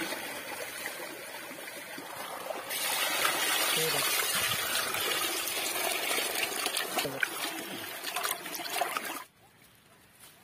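Water pouring into a steel basin of raw chicken pieces, splashing over the meat as it is washed. The pour grows louder about three seconds in and stops suddenly near the end.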